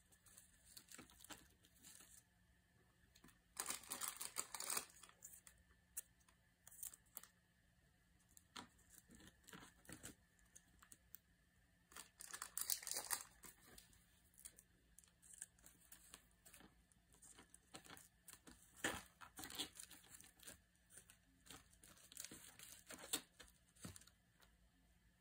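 Faint rustling of paper cutouts and cardboard being handled and fitted onto a paper doll: a handful of short, crinkly rustles a few seconds apart.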